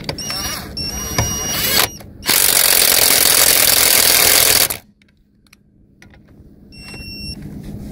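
Avid Power 20V cordless impact wrench hammering on car lug nuts torqued to 80 foot-pounds: short bursts of the motor at first, then about two and a half seconds of loud continuous hammering that stops suddenly. Near the end comes a brief high whine of the motor. The wrench struggles to break the nuts loose.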